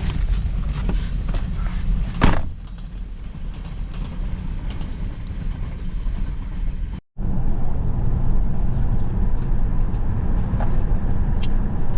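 Steady low rumble of a moving car's road and engine noise, with one sharp loud knock about two seconds in and a sudden brief cut-out just past the middle.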